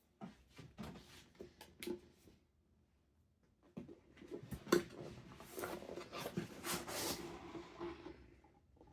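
Packaging being handled during an unboxing: a string of light clicks and knocks, a short pause, then a long rustle of packing material with a sharp click about five seconds in.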